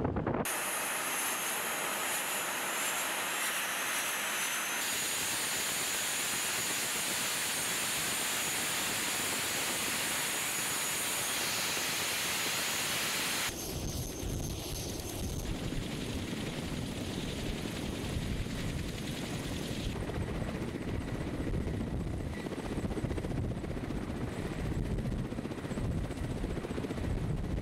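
Ka-52 attack helicopter running on the ground: first a high, steady turbine whine with a few high tones held in it, then, about 13 seconds in, a sudden change to the deeper, unsteady rush of its turning coaxial rotors and downwash.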